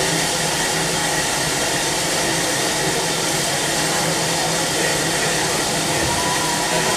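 Steam hissing steadily from a small black steam tank locomotive, venting in a plume low beside the cab, with a faint low hum underneath.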